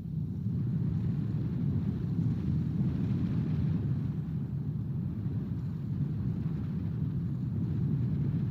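Wind buffeting the outdoor nest camera's microphone: a steady, gusting low rumble that grows louder about half a second in.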